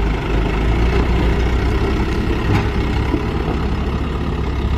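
Heavy truck engine idling steadily with a deep, fast-pulsing rumble.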